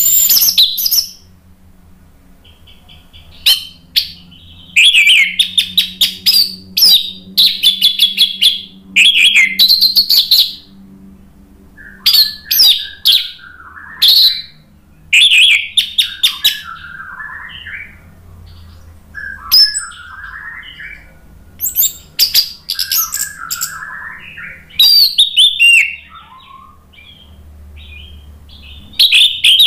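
Orange-headed thrush (anis merah) in full song, giving loud bursts of rapid, high chattering phrases separated by short pauses, with some lower warbled phrases mixed in through the middle.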